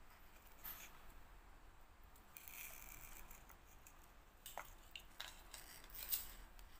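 Faint handling of a silver chain necklace lifted from its gift box: a stretch of soft high rubbing and rustling, then a few light clicks of the chain.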